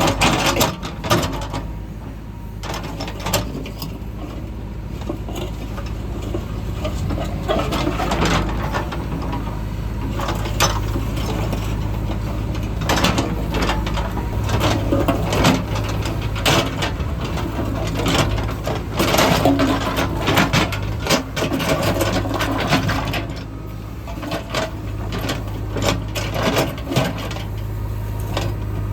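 Heavy construction machinery at work: a diesel engine running steadily under frequent irregular clanks, knocks and scraping.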